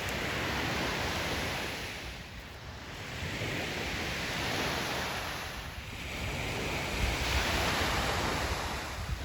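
Lake Superior waves breaking on the beach, a continuous rush of surf that swells and fades as each wave comes in, peaking about every three to four seconds.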